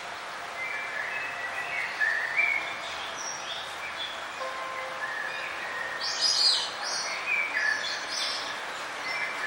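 Several small songbirds chirping and singing in short overlapping phrases over a steady background hiss, with a loud burst of high chirps about six seconds in.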